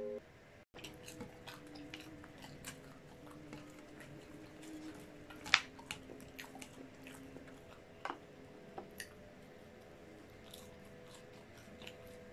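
Close-miked eating sounds: fingers handling French fries and a tortilla wrap on a plate, then chewing fries. Scattered short clicks and mouth sounds, with one louder click about five and a half seconds in.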